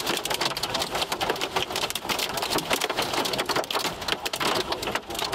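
Hailstones about an inch across, mixed with heavy rain, hitting a car's roof and windshield in a dense, irregular clatter of sharp impacts over a steady hiss, heard from inside the car.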